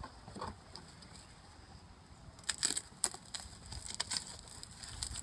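Sharp clicks and crackles of something being handled, mostly in a cluster starting about halfway through.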